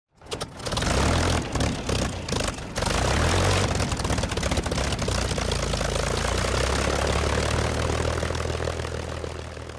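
Propeller-driven piston aircraft engine running, breaking up briefly a few times in the first three seconds, then running evenly and fading out near the end.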